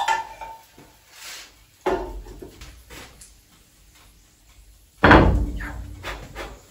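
Cookware and crockery being set down in a kitchen: a solid knock about two seconds in and a louder, heavier thud near the end, each dying away over a second or so.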